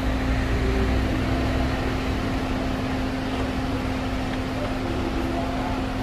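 Steady mechanical hum with one constant low tone running under it, unchanging throughout.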